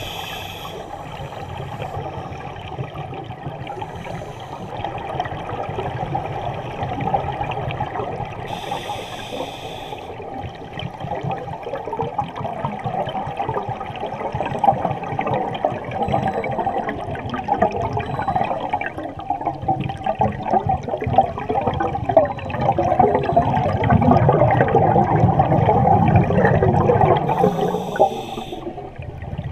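Underwater recording of scuba divers' exhaled air bubbles: a continuous bubbling, crackling rush from the regulator exhausts that grows louder about halfway through, with a few short higher hisses.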